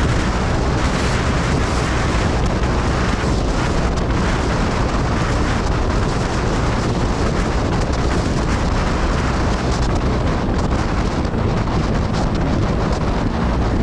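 Steady wind rushing over an action-camera microphone at riding speed, with the Suzuki Gixxer 250's single-cylinder engine running underneath at a steady cruise.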